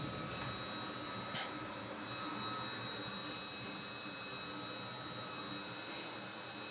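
Steady fan-like hiss from running workbench equipment, with a few faint, unchanging high-pitched whines over it.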